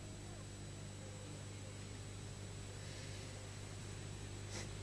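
Steady low electrical hum with an even hiss over it, the background noise of an old analogue TV recording; a faint tick near the end.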